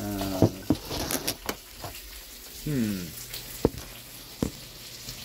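Handling noises: a scatter of sharp clicks and knocks as things are moved about and taken from a cabinet, with two short wordless vocal sounds from a man.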